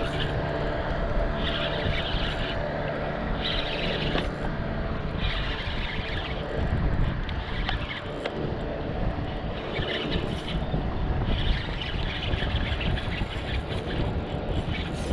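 Steady wind-and-water noise with a low rumble, brighter hissy spells coming and going every second or two, and a faint steady hum in the first couple of seconds.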